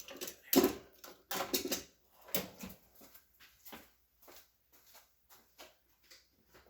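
Small objects being handled and set down on a work surface: a run of irregular clicks and knocks, loudest in the first few seconds and growing sparser and fainter after.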